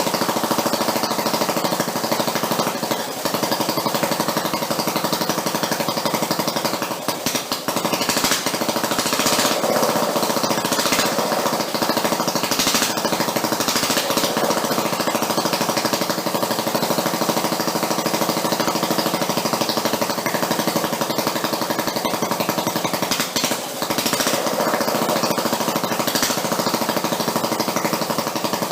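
Homemade single-cylinder engine built from a Quincy air compressor, running steadily with rapid, even firing beats.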